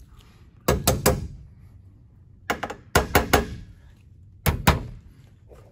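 Hammer tapping Hilti nail-screws into plastic anchors in a concrete-block wall, through a cork board's aluminium frame: sharp metallic taps in three quick bursts of two to five strikes each.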